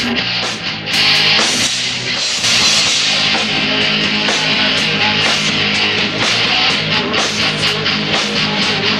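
Live rock band playing: distorted electric guitar over drum kit, with cymbal hits at a steady beat.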